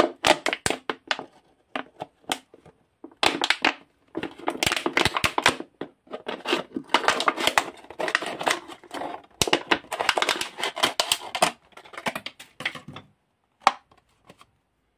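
Thin plastic drink bottle being handled and squeezed, crinkling and crackling in irregular bursts with sharp clicks. The sound stops about thirteen seconds in.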